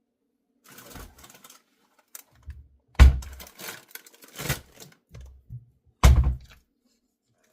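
Kitchen clatter: a handful of separate knocks and thuds as things are handled and set down, the loudest about three seconds in and again about six seconds in.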